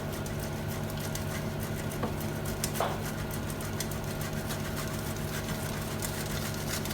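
Cheese being grated by hand on a grater, a light scraping that keeps on with small irregular ticks, over a steady low hum.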